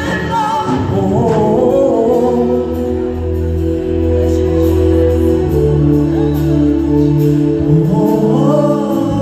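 Live gospel praise-and-worship music: a vocal group singing over long held chords and a bass line, with sung lines rising near the start and again near the end.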